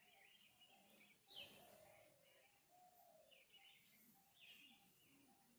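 Faint birdsong: short chirping calls that recur about every second, over quiet outdoor ambience.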